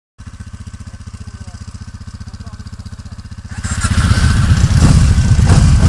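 Quad bike engine idling with a steady, even low pulsing. About three and a half seconds in, a much louder, fuller sound with sharp beats comes in and covers it.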